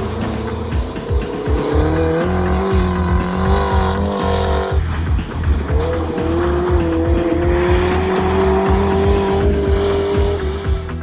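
Rally car engine revving up as the car accelerates, cut off about halfway through and followed by a second rally car's engine climbing in pitch again. Background music with a steady beat plays under the engines.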